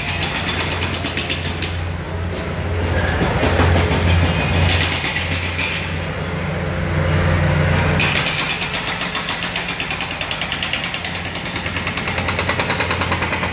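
Heavy construction machinery running, with a steady low drone under a rapid rattling or hammering that fades twice and comes back.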